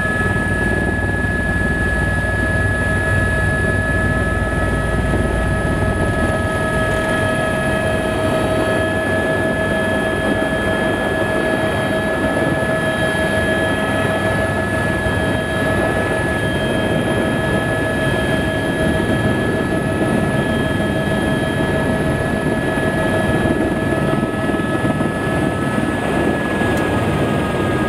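Airbus AS350 A-Star tour helicopter heard from inside the cabin as it comes in to land: a steady turbine whine with several high tones over the dense rotor and engine noise. The deep low rumble eases off about six seconds in.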